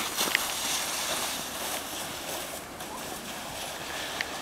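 Red plastic sled sliding down a packed snow track, a steady scraping hiss that gradually fades as the sled moves away.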